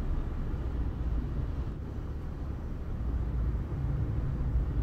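Steady low rumble of background noise with no distinct events in it.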